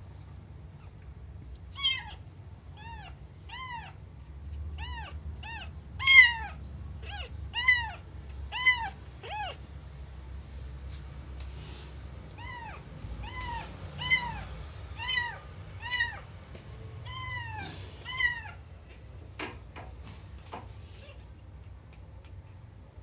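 A kitten meowing over and over, about one short high meow a second. Each meow rises and falls in pitch, and there is a short pause in the middle of the series. A few sharp taps come near the end.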